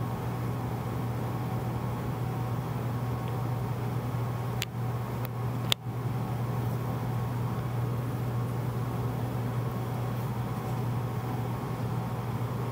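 A steady low mechanical hum with a few faint steady tones above it. Two sharp clicks come about four and a half and six seconds in, and the second is followed by a brief dropout.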